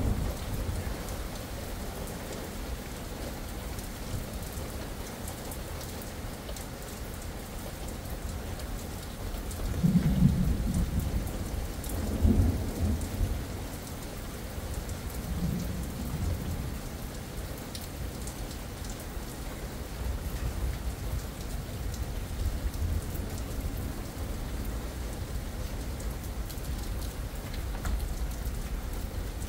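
Steady rain falling, with low thunder rumbling three times: the loudest about ten seconds in, then two smaller rumbles over the next six seconds.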